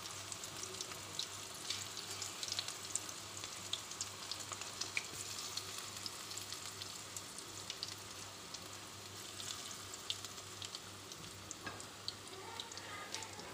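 Potato and cabbage pakoras in gram-flour batter deep-frying in hot oil in a karahi: a steady sizzle with frequent small pops and crackles.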